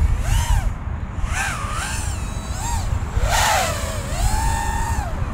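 5-inch FPV quadcopter on DAL Fold F5 5.1-inch folding propellers flying by, its motor and prop whine swelling up and down in pitch several times with the throttle, then holding a steady note near the end, over a low rumble. The props sound like normal props, with no flutter.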